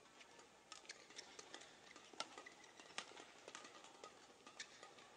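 Badminton rally: sharp cracks of rackets striking the shuttlecock about once a second, with lighter taps between.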